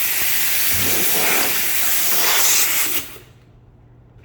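Compressed air hissing steadily, typical of a tire being inflated or bled at the valve, cutting off abruptly about three seconds in.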